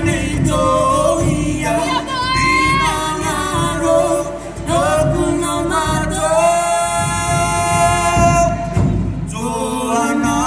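A group of voices singing a Cook Islands song together, the notes sliding up and down, with one long note held for about two seconds past the middle.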